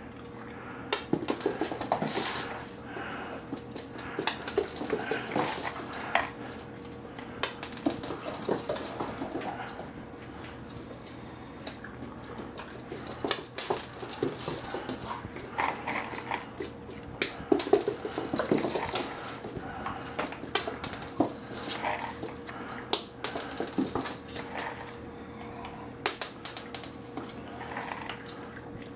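Boston terrier scampering on a hardwood floor while playing with her dry food: claws clicking on the boards and kibble pieces clattering and skittering across the floor, in irregular sharp clicks.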